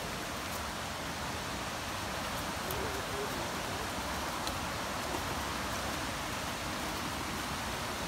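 Steady, even rush of running water, the continuous noise of a nearby waterfall and stream.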